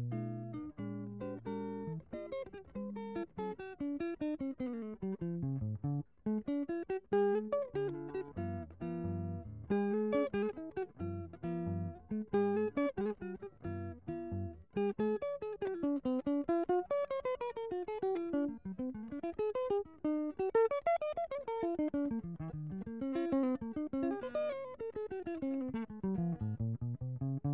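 Instrumental background music on plucked guitar: quick runs of notes climbing and falling in pitch, with low bass notes under the first half.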